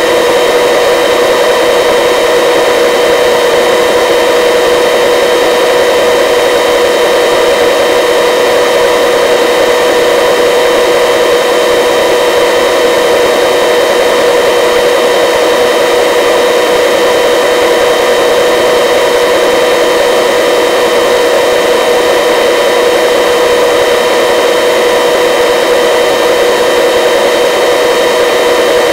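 Helicopter in flight, heard from on board: the engine and rotors make a steady, loud rushing noise with a whine held at several fixed pitches.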